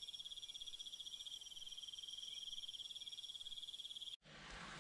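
Insects trilling: one steady, rapidly pulsing high trill that cuts off sharply about four seconds in, giving way to faint outdoor background noise.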